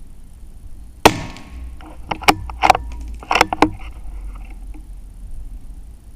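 A single shot from a Tikka T1X bolt-action .22 LR rifle about a second in. It is followed by a quick series of metallic clicks, the bolt being worked to eject the case and chamber the next round.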